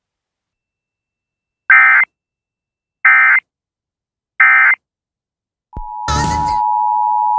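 Three short bursts of Emergency Alert System SAME header data, warbling digital tones repeated about a second apart, which encode the start of an alert. Near the end a brief crackle of static is heard, and the steady two-tone EAS attention signal begins.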